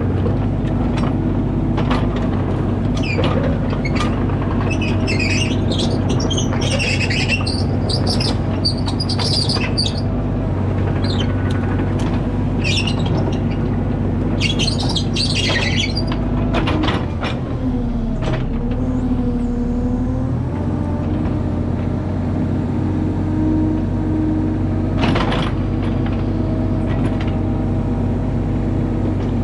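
Mini excavator's diesel engine running steadily with a hydraulic whine while the bucket digs clay, with scraping and grating at intervals and a few sharp clanks. The engine pitch dips and recovers midway as the hydraulics take load.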